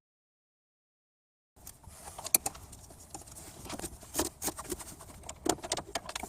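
Dead silence for about a second and a half, then irregular light clicks and knocks of tools and metal parts being handled during engine-bay work.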